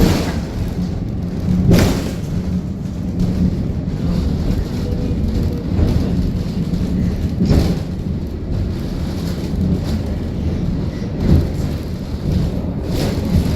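Funicular railcar running up its track: a steady low rumble and hum, broken by a few sharp clunks.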